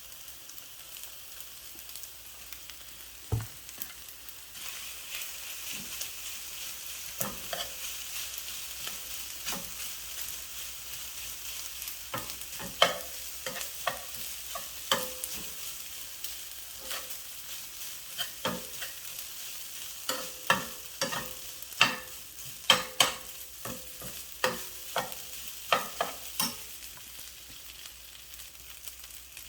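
Fried rice sizzling in a hot pan while a spatula stirs and scrapes it, with sharp clacks of the spatula against the pan that come more often in the second half.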